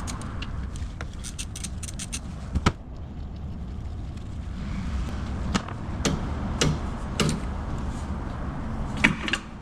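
Hand tools at work on a rear brake caliper while its 12 mm caliper bolts are taken out: a quick run of clicks about a second in, then scattered metallic clicks and knocks over a steady low rumble.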